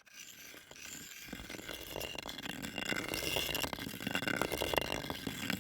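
Gritty crackling and rattling of sand and crushed stone, dense with small clicks, swelling in over the first two seconds and then holding steady.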